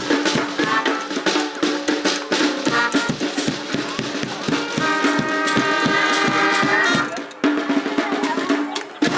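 Brass band playing a lively tune: saxophones, trumpets, trombone and tuba over a steady bass drum and snare beat, with a short break about seven seconds in.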